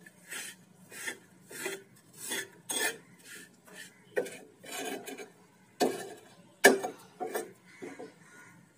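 Metal spatula scraping and pressing against a frying pan as rice is mixed into ground fried bori, in repeated strokes about one or two a second. A sharper knock of the spatula on the pan comes about two-thirds of the way through.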